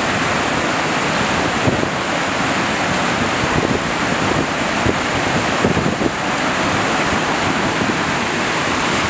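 Öxarárfoss waterfall crashing onto rocks and rushing down a boulder-filled stream, a loud, steady roar of water.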